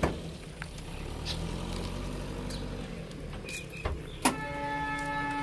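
A car door is opened with a click, followed by a few light knocks and handling noises. About four seconds in there is a sharp click, and then a steady electrical buzz starts inside the car and keeps going.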